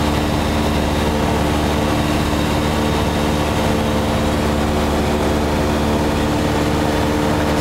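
Cessna 172's single piston engine and propeller running steadily in flight, heard from inside the cabin as an even drone of several low tones over a haze of air noise.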